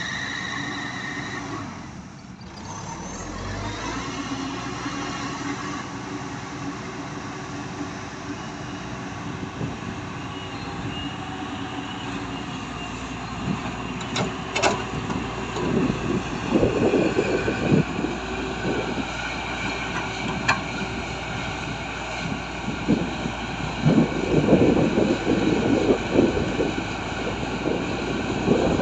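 Heavy earthmoving machinery running steadily, with rough, irregular bursts of scraping, clanking noise in the second half.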